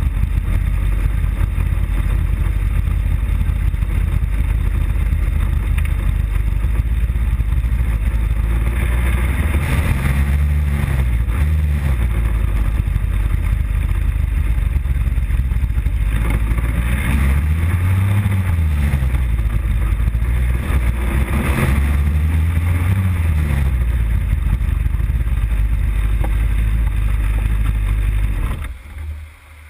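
Motorcycle engine running at low speed, its note rising and falling three times as the throttle is opened and closed. Near the end the engine is switched off and the sound drops away.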